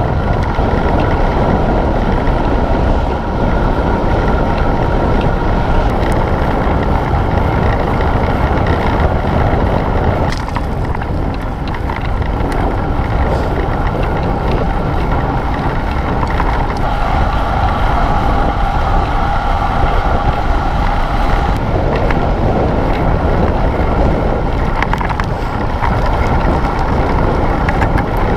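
Wind buffeting a handlebar-mounted camera's microphone, with the rumble of bicycle tyres on asphalt, as a cyclocross bike is ridden at speed.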